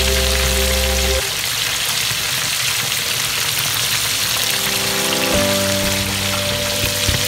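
Whole safi fish (rabbitfish) frying in hot oil in a pan, a steady sizzle. Background music plays at the start, stops about a second in, and comes back near the end.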